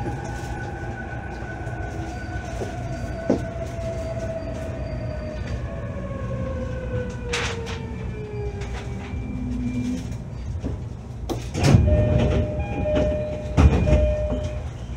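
Interior running sound of a JR East E531 series electric multiple unit: a steady rumble under a motor whine that falls smoothly in pitch as the train slows. Near the end come two loud bursts of wheel clatter.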